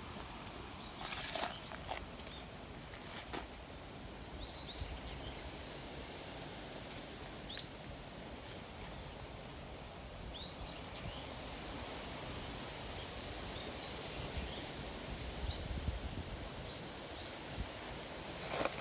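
Outdoor woodland ambience: small birds give short high chirps now and then over a steady background hiss. Brief rustles come about a second in, again around three seconds, and near the end.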